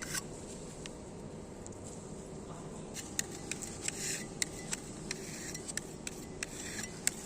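Scattered light clicks and a few short scrapes of hand tools working filler into a crack in a concrete slab.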